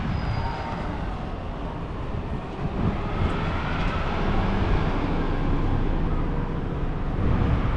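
City street traffic: a steady low rumble of vehicles, with one passing vehicle swelling and fading about halfway through.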